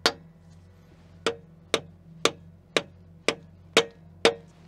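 Hammer striking a steel injector-cup installer driver, tapping a new injector sleeve evenly into its bore in the cylinder head. There are about eight sharp metal taps, roughly two a second, each with a brief ring.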